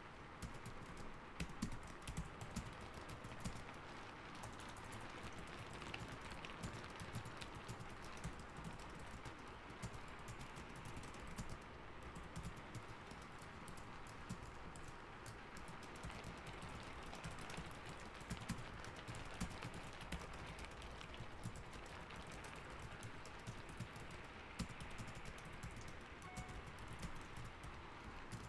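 Computer keyboard typing from an added ambience track: a continuous run of irregular key clicks over a steady hiss of rain.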